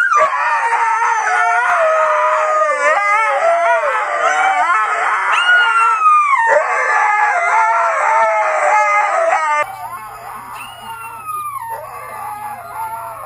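Huskies howling in long, wavering howls that glide up and down in pitch. About nine and a half seconds in, the sound cuts abruptly to quieter howling with a steady low hum underneath.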